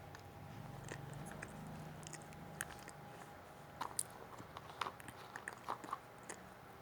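Someone chewing and biting into a rosquinha close to the microphone. A faint low hum runs through the first half, then comes a run of short, crisp clicks and crunches.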